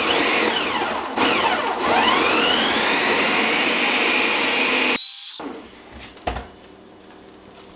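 Countertop blender motor pulsing a wet peach salsa mix: it winds down briefly about a second in, spins back up, and runs until it stops suddenly about five seconds in. A light knock follows as the blender is handled.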